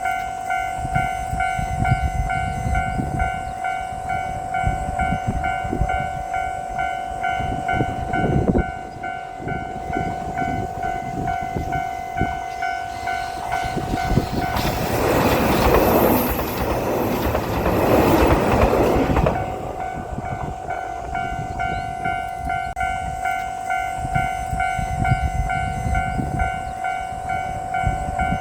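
Japanese level-crossing alarm ringing with its steady repeating electronic bell, then a JR Shikoku limited express diesel train rushes through about halfway. For about five seconds its loud rushing rumble drowns the bell, and then the bell rings on.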